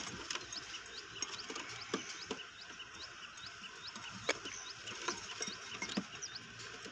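Pigeons pecking at feed in a clay dish: scattered light taps. Faint, short high chirps repeat a couple of times a second behind them.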